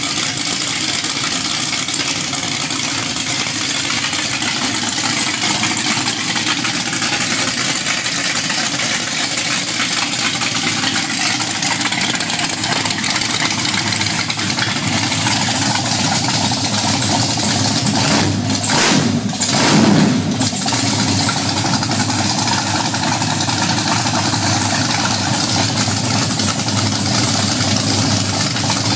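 Chevrolet 350 small-block V8 on an engine run stand, running steadily through open long-tube headers with no mufflers. It swells briefly once about two-thirds of the way through.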